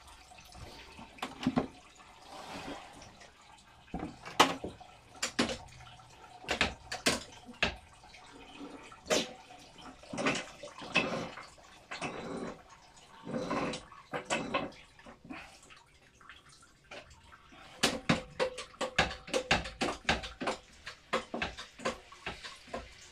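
Hand-operated ratchet basket wine press being worked: repeated metallic clicks and clanks from the ratchet head as its lever is pumped to squeeze the grapes, coming in irregular bunches and quickening near the end.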